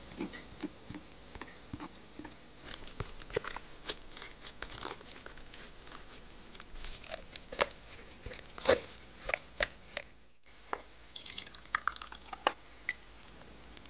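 Silicone spatula pressing and scraping grated pear, onion and radish pulp against a fine-mesh strainer to squeeze out the juice: irregular wet crunching and squishing with small clicks. After a break about ten seconds in, a few sharper clicks.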